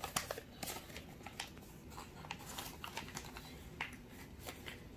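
A partly folded sheet of A4 paper rustling and crackling as hands fold and pull at it: many small, irregular crackles, faint throughout.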